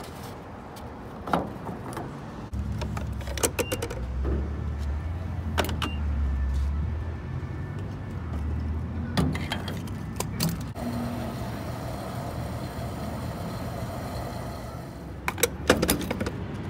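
Refuelling a car at a gas pump: clicks and clunks from the fuel door, cap and nozzle being handled, over the steady hum and rush of the pump and fuel flow.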